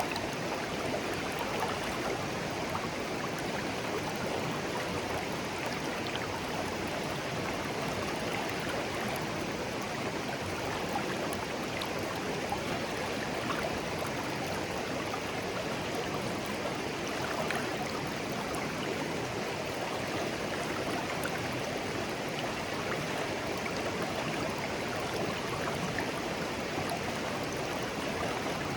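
A small, clear stream babbling gently, with a steady, even rush of flowing water.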